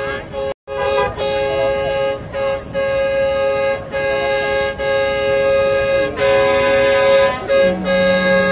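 Tractor horns honking in a string of long, steady blasts with short breaks between them. A second, lower-pitched horn joins in near the end.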